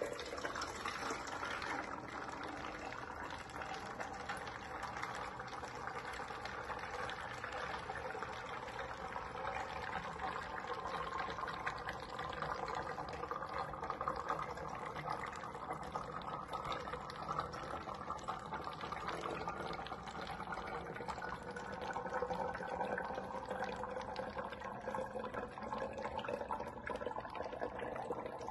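Water draining in a swirling vortex through a plastic tornado-tube connector from one upturned 2-liter bottle into another, a steady pouring rush whose pitch slowly rises as the lower bottle fills.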